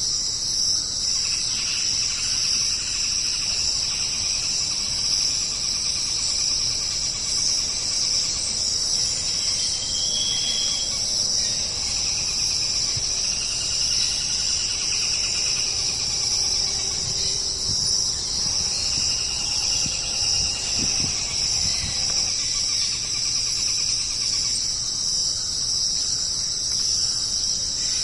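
Steady chorus of chirping insects, with a few fainter, lower calls coming and going over it.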